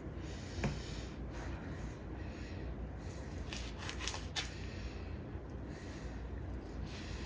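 Thin-bladed knife slicing through a crisp, flour-crusted fried chicken breast on a plastic cutting board: faint crackling cuts, with a few sharper crunches a little past the middle. A light knock comes about half a second in.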